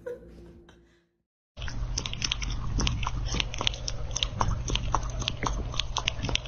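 Kitten chewing dry kibble from a bowl: rapid, irregular crunches over a low steady hum, starting about a second and a half in.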